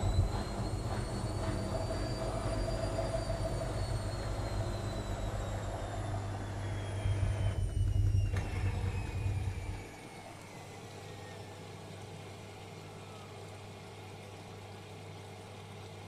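Whirlpool FL 5065 front-loading washing machine running its drum: a motor whine climbs over the first couple of seconds, then slowly falls, over a heavy rumble. The rumble is loudest around eight seconds and drops away about ten seconds in, leaving a quieter hum as the whine keeps falling.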